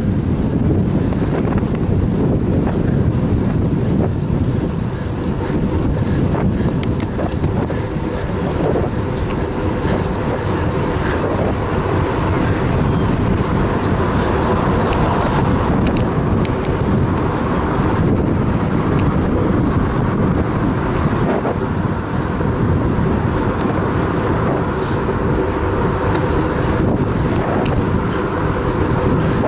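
Steady rush of wind and tyre-on-asphalt noise from a road bicycle riding at about 30 km/h, heard from the rider's position.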